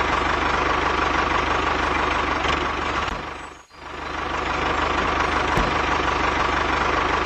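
Tractor engine running steadily with a fast, even firing rhythm. It fades out about three and a half seconds in and comes back up soon after.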